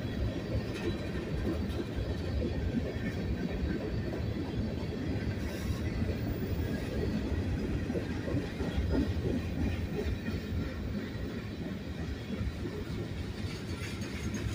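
Freight cars of a manifest train, covered hoppers and tank cars, rolling past with a steady rumble of steel wheels on the rails.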